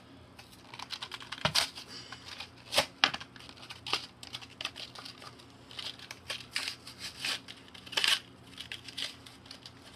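Crinkling and rustling of a keychain's plastic-and-card blister package being handled, with scattered sharp clicks and taps; the loudest come about a second and a half, three and eight seconds in.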